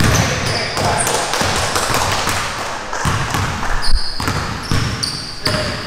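Several basketballs being dribbled on a court, a dense run of bounces with one louder bounce about four seconds in. Short high sneaker squeaks come in the second half.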